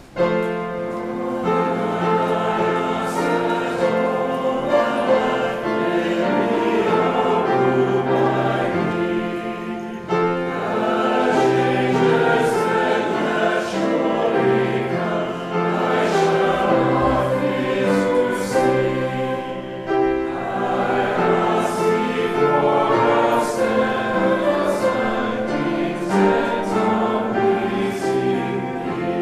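A congregation singing a hymn together, the voices holding long notes that move step by step.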